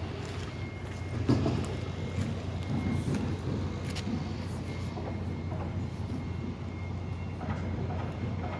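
Steady low rumble of heavy vehicle engines running at a construction site, with a few sharp knocks; the loudest comes about a second in.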